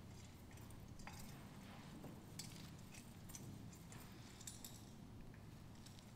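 Near silence: a low room hum with a few faint clinks and rustles.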